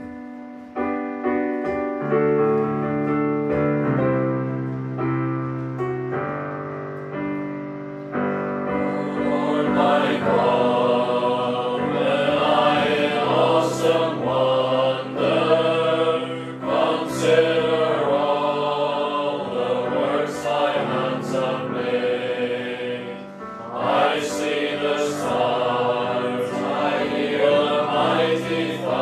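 Electronic keyboard playing a hymn introduction in held chords, then a small mixed choir of men's and women's voices comes in, about eight seconds in, singing the gospel hymn with the keyboard accompanying.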